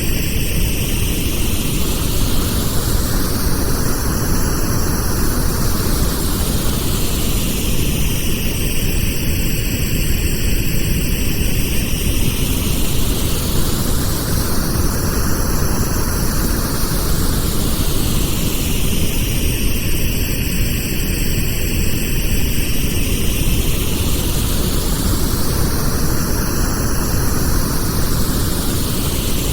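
Pink noise: a steady, dense hiss with a slow whooshing sweep that rises and falls about every eleven seconds.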